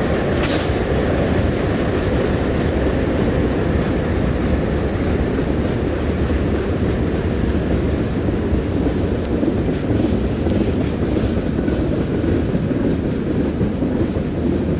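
Loaded and empty freight cars, covered hoppers and tank cars, rolling past on the rails with a steady low rumble of wheels and some clickety-clack. There is one brief sharp noise about half a second in.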